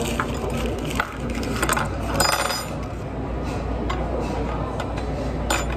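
Scattered light clinks and knocks of cutlery and dishes against a steady restaurant background hum, with one brighter ringing clink a little past two seconds in.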